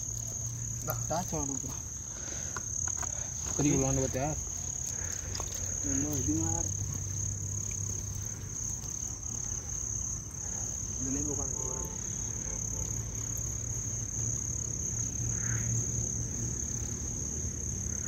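Night insects trilling in one steady, high, unbroken tone, over a low steady hum, with a few brief faint voices now and then.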